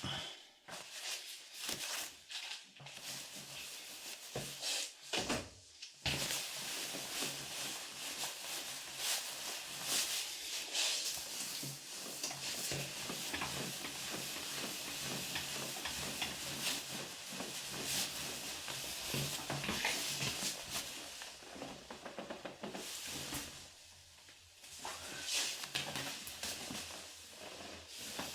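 Hands rubbing and pressing over clothing and skin during a hands-on chiropractic treatment: a steady rustling with many small clicks and scrapes. It is sparser for the first few seconds, thickest through the middle, and dies down near the end.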